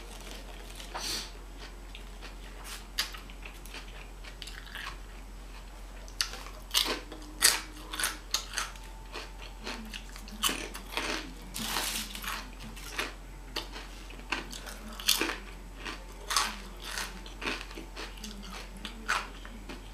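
Crunchy snack chips being bitten and chewed: irregular sharp crunches in quick runs, with quieter gaps between mouthfuls.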